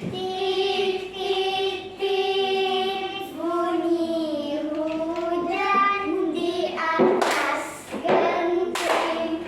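A group of children singing together in unison without accompaniment, holding long notes that slide between pitches. Two sharp noises cut across the singing near the end.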